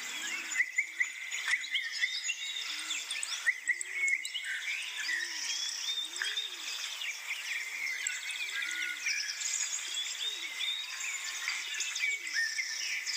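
Birdsong ambience: many birds chirping and singing, with a frog giving a steady series of short low croaks, about three every two seconds, each rising and falling in pitch.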